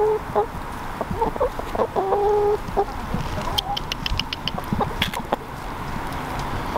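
A flock of free-ranging chickens clucking and calling, with drawn-out hen calls in the first couple of seconds and softer scattered clucks after. A quick run of sharp clicks comes a little past halfway.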